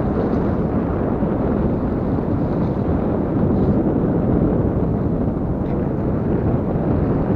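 Strong wind blowing across the microphone: a steady, loud low rumble that doesn't let up.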